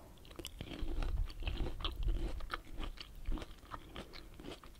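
Close-miked chewing of juicy pomelo flesh: many small wet crackles, smacks and clicks as the pulp sacs burst in the mouth, starting about half a second in and thinning out near the end.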